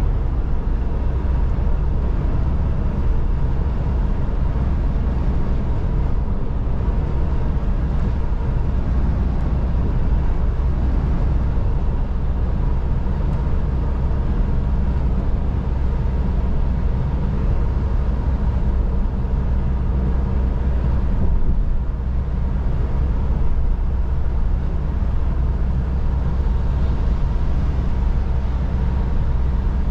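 Steady drone inside a Volvo lorry cab at motorway cruising speed: the diesel engine's low hum under a hiss of tyres on the wet road.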